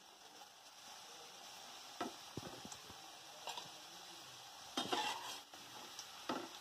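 Potato fries sizzling steadily in hot oil in a steel kadai, their second fry on high heat. A metal slotted spoon clicks and scrapes against the pan a few times as they are stirred, loudest about five seconds in.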